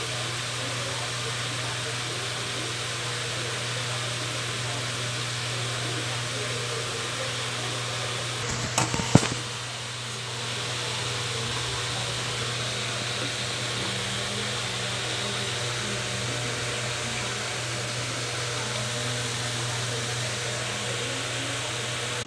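Hot oil sizzling steadily as coconut-filled kajji kayalu pastries deep-fry in a steel kadai, over a steady low hum. A brief cluster of clinks comes about nine seconds in.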